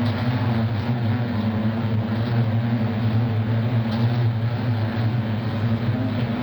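Beehive humming: many bees buzzing together in a steady, even drone with a low pitch.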